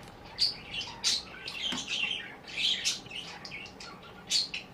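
A small bird chirping and tweeting again and again in short high calls, several each second or so.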